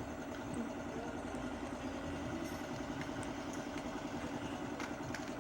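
Steady mechanical hum like a running engine in the background, with a few light metallic clicks about halfway through and near the end.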